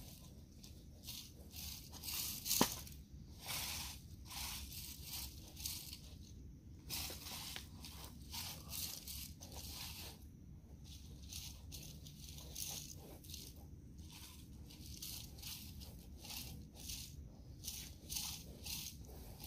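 Hands scraping and spreading loose soil to level it: a run of short rustling scrapes, with one sharp click about two and a half seconds in.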